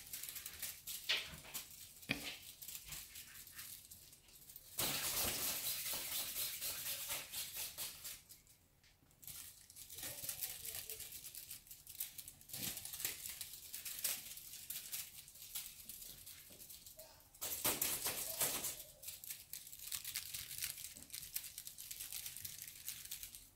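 Rustling and scuffling of kittens playing on a quilted fabric blanket with a feather wand toy, in uneven bursts with light clicks. It is louder for a few seconds about five seconds in and again about eighteen seconds in.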